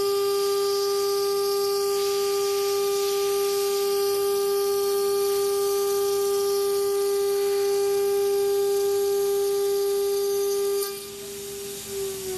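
CNC router spindle running at speed, a steady high whine with overtones. Near the end the level drops sharply.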